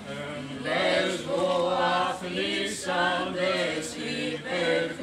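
A small group of young male voices chanting a Greek Orthodox hymn together, a slow melody of long held notes.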